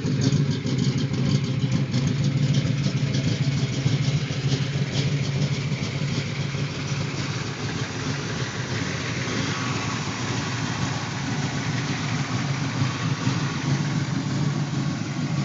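Chevrolet V8 with tube headers in a 1982 Oldsmobile Cutlass Supreme, idling steadily.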